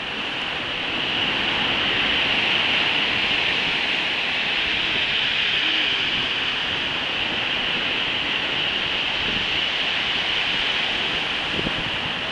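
Rough, stormy sea: surf breaking and washing ashore in a steady rush that swells a little after the first second.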